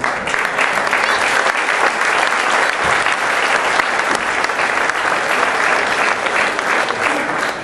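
Crowd of spectators applauding: a dense, steady clatter of many hands clapping at a loud, even level.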